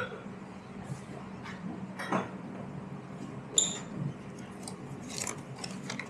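Barista's work at an espresso bar: scattered light clicks and knocks of cups and tools over a steady low hum, with one sharp ringing clink about three and a half seconds in.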